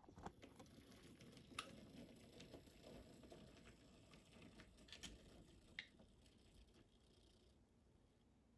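Near silence, with a faint hum that fades away about seven seconds in and a few faint, scattered clicks.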